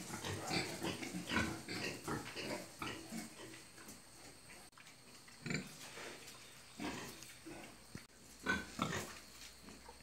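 Pigs grunting: a quick run of short grunts over the first few seconds, then scattered single grunts.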